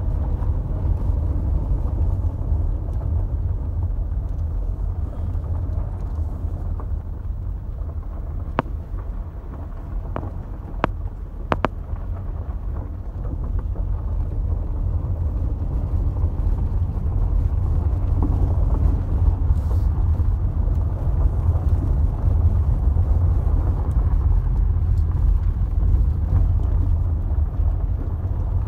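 A car driving on a dirt and gravel road, heard from inside the cabin: a steady low rumble of engine and tyres. There are a few sharp clicks about a third of the way through.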